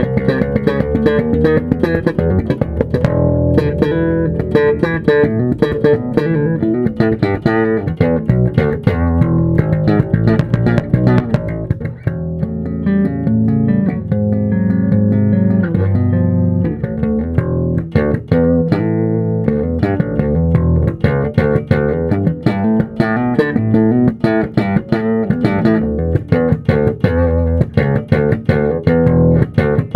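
1985 Japanese-made Fender Precision bass with a maple fretboard, played through a Mark amp and a GK 4x10 cabinet: a continuous bass line of quick plucked notes with no breaks.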